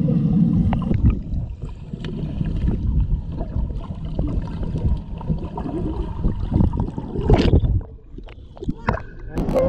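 Muffled rumble and bubbling of swimming-pool water heard underwater, with scattered faint clicks and a louder surge of water about seven and a half seconds in.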